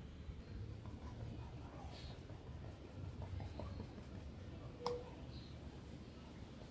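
Faint brushing of a wet paintbrush on cotton fabric, with one sharp click about five seconds in.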